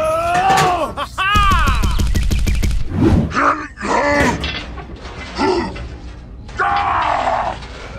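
Edited-in music and cartoon-style sound effects: a pitched tone that rises and falls, then a fast rattling burst like machine-gun fire of about a dozen hits a second lasting over a second, followed by short grunting, groan-like voice sounds.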